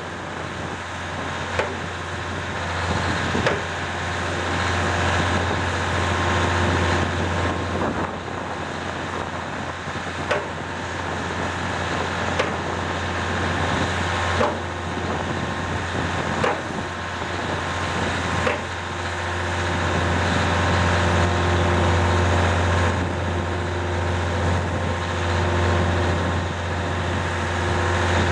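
Heavy machinery running steadily with a deep, even drone, with sharp clicks about every two seconds through the middle of it.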